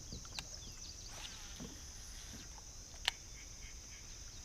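Steady high-pitched insect chorus with a few faint bird chirps, and one sharp click about three seconds in.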